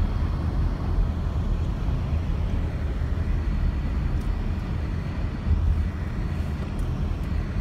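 Road noise heard from inside a moving car's cabin: a steady low rumble of tyres and engine at highway speed.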